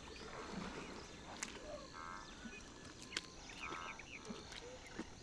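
Faint outdoor wildlife ambience: scattered short chirping calls, two brief rattling calls about two seconds apart, and a few soft clicks.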